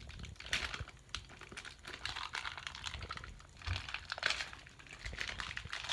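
Irregular rustling and light clicking of small plastic toy parts and packaging being handled, in short bursts.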